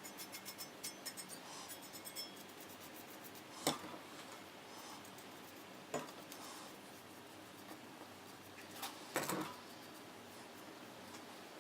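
Quick light ticking for the first two seconds or so, then a few sharp clicks and knocks spread over the rest, the loudest about nine seconds in: small hard parts and tools being handled and set down on a workbench.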